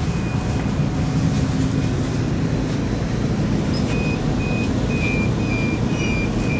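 Calgary CTrain light-rail car running, a steady low rumble. About four seconds in, a run of short, high beeps starts and repeats.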